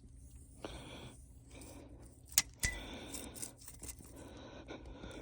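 Two sharp clicks about a quarter second apart, halfway through, among fainter ticks and handling noise.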